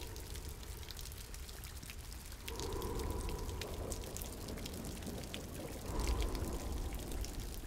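Rain ambience: scattered drips and splashes over a steady wash of falling and pouring water, swelling louder twice.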